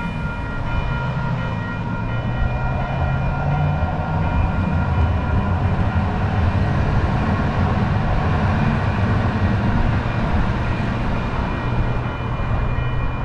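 Light-rail train running: a steady low rumble with several steady high tones over it.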